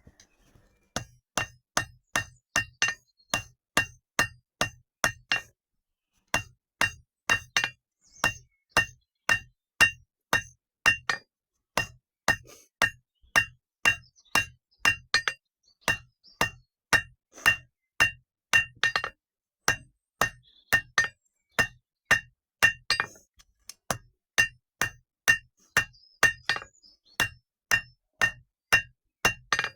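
Blacksmith's hammer forging metal on an anvil: a steady run of ringing blows, two to three a second, broken by a few short pauses.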